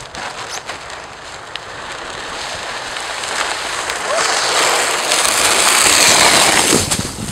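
Hard plastic sled sliding over an iced-over asphalt driveway: a scraping hiss that grows louder as the sled comes closer, loudest about five to six and a half seconds in, then falling away. A few sharp ticks sound in the first second.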